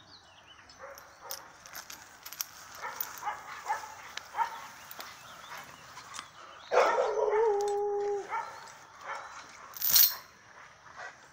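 A dog yipping and whining: a string of short calls, then one louder, longer held whine about seven seconds in, and a brief sharp noise near the end.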